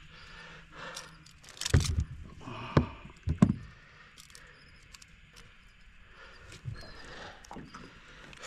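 Knocks and metal clinks of unhooking a freshly caught queenfish in a small aluminium boat, with a few loud knocks about two and three and a half seconds in and light clicks between.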